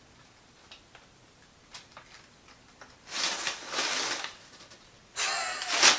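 Crumpled newspaper packing and plastic bubble wrap rustling and crinkling as they are pulled out of a cardboard box. A few faint ticks come first, then two spells of rustling, about three seconds in and again near the end.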